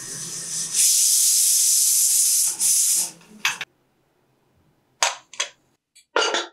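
Aluminium stovetop pressure cooker whistling: steam hisses loudly out under the whistle weight for about three seconds, then stops. Near the end come a few short metal clanks of the cooker pot and lid being handled.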